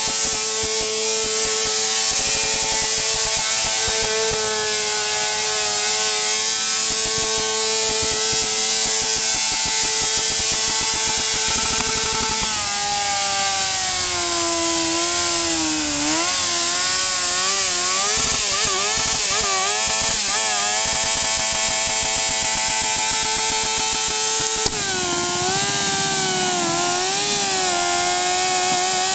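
Honda CBR600F2 inline-four engine held at high revs in a burnout, with the hiss of the spinning rear tyre. The engine note stays steady for the first twelve seconds or so, then drops and wavers as the throttle is worked, with a short click and a steadier, slightly lower note for the last few seconds.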